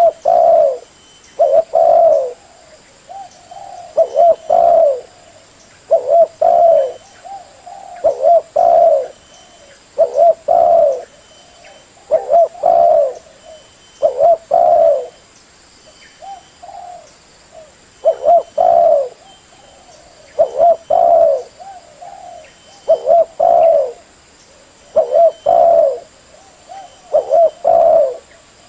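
Spotted dove cooing: a phrase of two or three low coos repeated about every two seconds, with fainter coos in the gaps.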